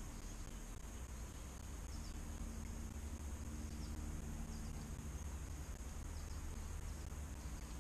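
Quiet riverside ambience: a steady low rumble with a constant high, thin insect drone over it and faint short chirps every second or two.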